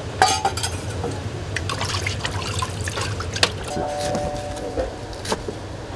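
A kitchen knife crunching through the crisp breaded coating of a fried pork cutlet on a wooden board, with irregular crackles and snaps over a steady low hum.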